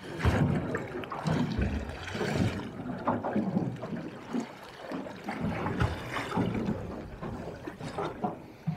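Sea water lapping and slapping against the hull of a small drifting boat, in irregular surges.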